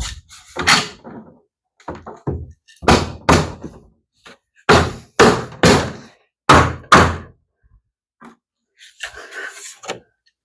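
Hammer striking a plastic pool-ladder part to knock it into place: about ten knocks, mostly in quick pairs, then handling rustle near the end.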